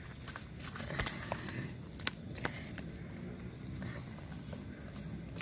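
Rustling and scattered small clicks from handling freshly caught fish on the ground, over a faint steady insect buzz.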